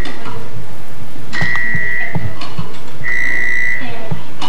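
Electronic quiz buzzer console sounding two steady, high beeps, each under a second long, about a second and a half apart, with a few light knocks between them.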